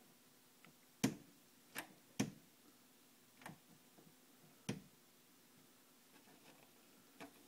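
A wooden door knocking and clicking against its frame as a cat paws and bites at its edge to prise it open: about six sharp knocks at uneven intervals, the loudest in the first two and a half seconds.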